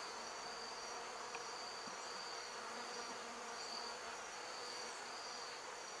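Honeybees buzzing faintly around an open hive, over a steady high-pitched insect chorus.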